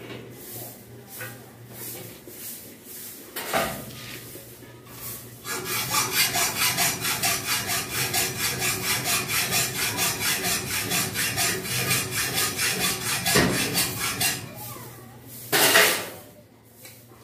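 Hand hacksaw cutting metal in quick, even back-and-forth strokes for about nine seconds, starting about a third of the way in. Before it come scattered clatters of metal being handled, and near the end there is one short, loud scrape.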